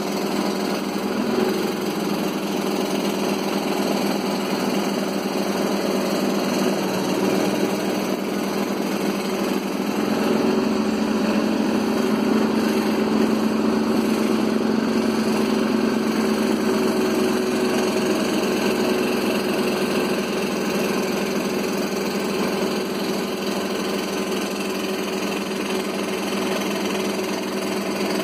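Scroll saw running steadily, its blade stroking up and down as it cuts through a wooden sheet; the pitch and level hold almost constant, slightly fuller from about ten seconds in.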